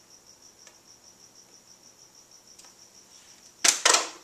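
Faint high-pitched chirping that pulses about five times a second, with two short, loud rushes of noise close together near the end.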